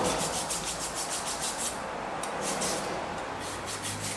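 Hand file scraping rust off a brake caliper bracket in quick, even strokes, about five a second. After about two seconds the strokes become slower and more broken.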